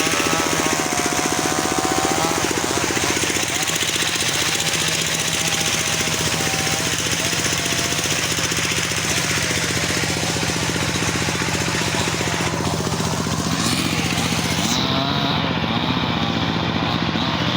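Mini chainsaw running and cutting wood, its pitch rising and falling as it works.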